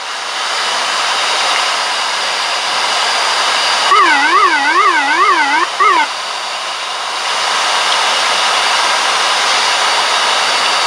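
Steady cockpit noise of an ATR-72-600 in flight on approach: the Pratt & Whitney PW127 turboprops, propellers and airflow make an even rushing drone that swells slightly about seven seconds in. About four seconds in, a warbling tone rises and falls evenly for about two seconds.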